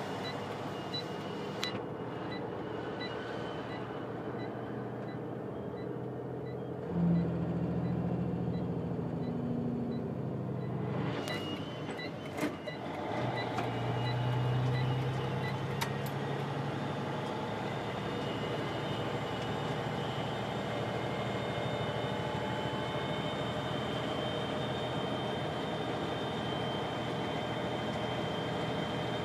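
Truck's diesel engine running under load, heard from inside the cab. Its note changes abruptly about seven seconds in and again about thirteen seconds in, with a few sharp clicks in between. A faint regular ticking, about two a second, runs over the first several seconds.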